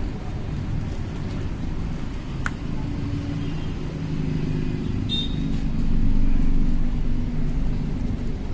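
Motor vehicle engine running with a steady low rumble that swells about six seconds in.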